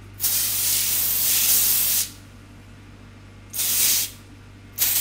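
Aerosol cooking spray hissing from the can in three bursts: a long spray of nearly two seconds, a short half-second spray, then another starting near the end.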